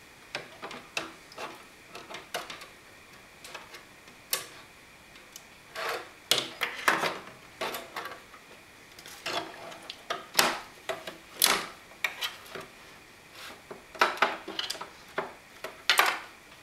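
Graphics card being fitted into a Mac Pro's expansion slots: irregular clicks, knocks and scrapes of the card and its metal bracket against the case as it is worked into place.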